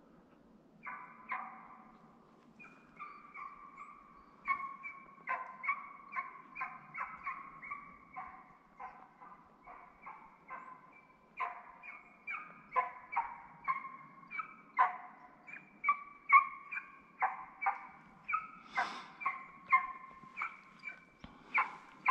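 Hunting dog baying on a chase: a long run of short, repeated barks, about two a second, the sign of a hound giving tongue as it follows game.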